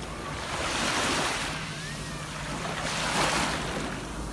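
Sea waves breaking and washing on the shore: the surf swells twice, about a second in and again about three seconds in.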